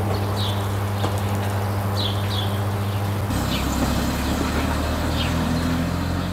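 A steady low hum with a higher overtone, which shifts to a lower, rougher hum about three seconds in. Over it, a small bird gives short high chirps every second or so against a background hiss.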